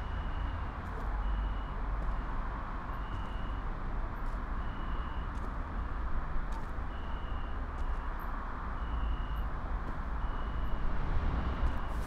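Night-time outdoor ambience: a steady low rumble like distant traffic, with a short high chirp repeating every second or so.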